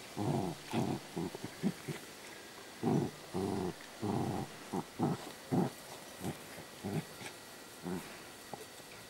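Dogs growling in play as they tug a rag back and forth: a broken string of short growls, about a dozen, the longest about half a second.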